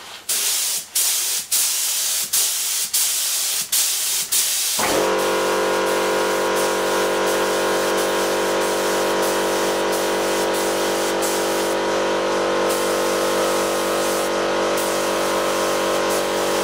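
Air spray gun hissing as 2K clear coat is sprayed, first in short trigger bursts about twice a second, then in one continuous spray. About five seconds in, an air compressor motor starts and runs with a steady hum under the hiss.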